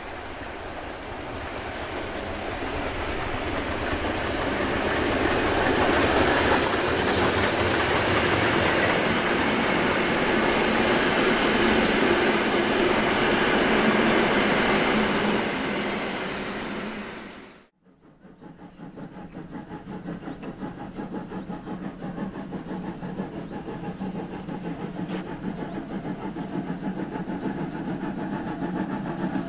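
Steam-hauled passenger train passing close by: the locomotive and its coaches rolling past, swelling over the first few seconds and holding while the coaches go by, then cut off abruptly about two-thirds of the way through. A quieter steady sound follows that slowly grows louder.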